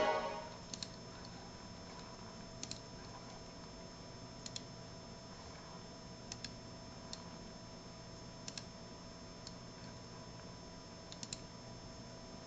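Faint clicks, mostly in close pairs, about every two seconds: computer mouse buttons being clicked while a web video player loads. A steady faint electrical whine lies underneath, and louder broadcast sound fades out in the first half second.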